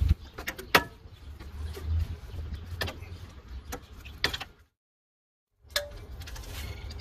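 Diagonal cutters snipping plastic zip ties on a car radiator: a few sharp snaps amid tool and handling noise over a low rumble. The sound drops out for about a second past the middle.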